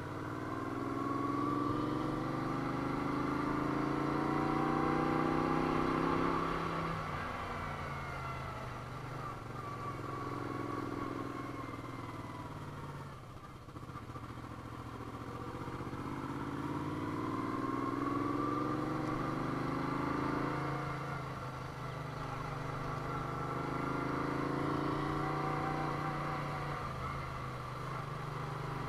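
Moto Guzzi V35's air-cooled V-twin engine running on the move. Its pitch climbs steadily under throttle and then falls back, about four times over, as the rider accelerates and eases off through the bends.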